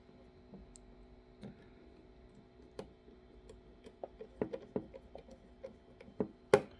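Small screwdriver and tiny screws clicking and tapping against the plastic gimbal housing and circuit board as a screw is fitted: light, irregular clicks, coming closer together in the second half, with one sharper click near the end.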